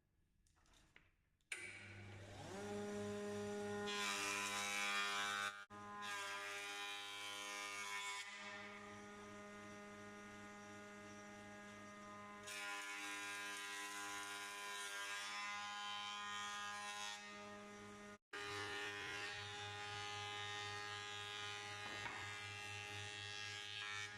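Metabo 2200-watt combined jointer–thickness planer switching on and spinning up with a rising whine, then running steadily with a hum. Several times its cutter head chews through wood being fed through the thickness planer, adding a rough planing noise, first about four seconds in, again around the middle and again near the end.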